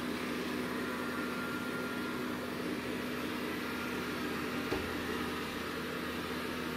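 Dreame L20 robot vacuum running, a steady whir of its suction fan with a low hum, and one light click a little after halfway.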